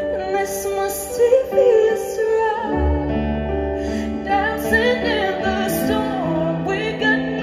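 Live pop ballad: a female singer holding a wavering, ornamented vocal line without clear words over sustained keyboard chords. A deep bass comes in just under three seconds in.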